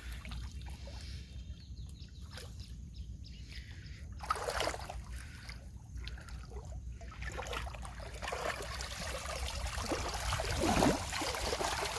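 River water splashing and trickling, heavier in the second half, as a cast net is worked and hauled from the water beside a small boat, over a steady low rumble.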